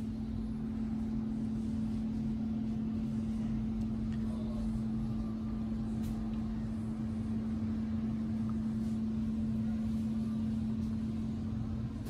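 Steady mechanical hum: one unchanging low tone over a low rumble, with a few faint ticks, cutting off right at the end.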